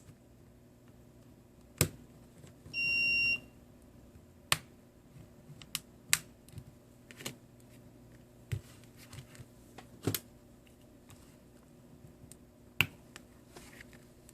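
Sharp clicks and taps of small repair tools handling a smartphone on a workbench, five louder ones spread through, with one short high electronic beep about three seconds in.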